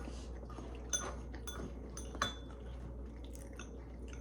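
Cutlery clinking against bowls and plates during a meal: scattered light clicks and taps, with two sharper clinks about one second and two seconds in, the second ringing briefly.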